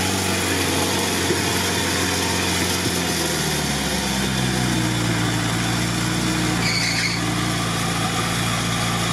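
Modified UAZ off-roader's engine running steadily under load while the truck is bogged in a mud pit, tyres churning. The engine note drops slightly about three and a half seconds in, then holds steady.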